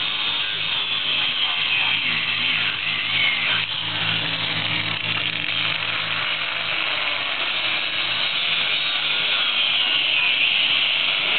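Angle grinder running steadily, cutting into a coconut.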